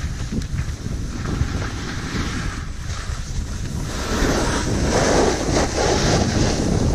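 Wind buffeting the camera microphone while snowboarding, with the snowboard's edge scraping and hissing over packed snow. The scraping gets louder from about four seconds in.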